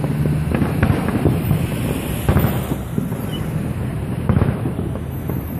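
Distant aerial firework shells bursting in a series of separate bangs, the strongest a little after two seconds in and again past four seconds, over a steady low rumble.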